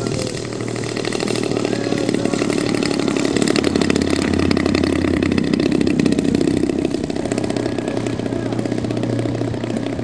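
Engine of a 40% scale Piper Pawnee radio-controlled model plane running as the plane lands and rolls along the runway. It grows louder to its peak about six seconds in, then eases off.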